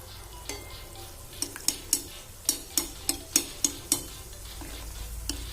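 Breaded kameera bread rounds frying in hot oil over a medium flame: a steady sizzle with a run of sharp crackles and taps, thickest around the middle.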